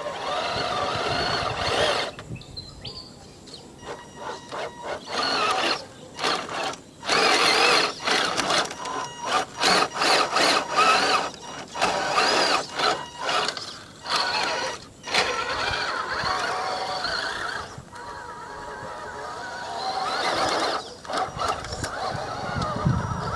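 Tamiya High-Lift Hilux RC truck's electric motor and gearbox whining in many short bursts as the throttle is blipped on and off, the pitch rising and falling, then running more steadily near the end as it drives off.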